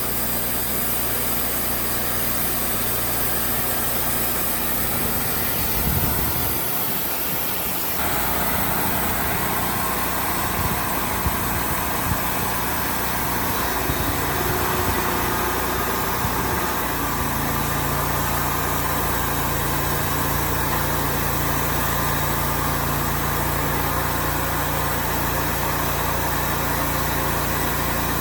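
An engine running steadily, its speed and pitch shifting a few times.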